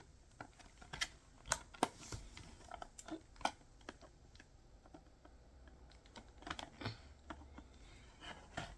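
Toy packaging being handled and opened by hand: a scattering of faint, irregular clicks and crackles.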